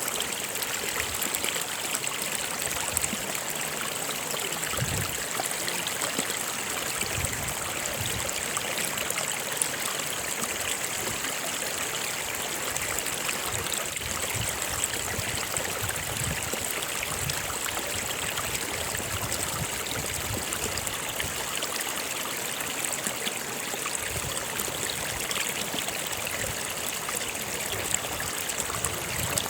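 A stream running steadily over rocks, a continuous rush with small splashes and gurgles.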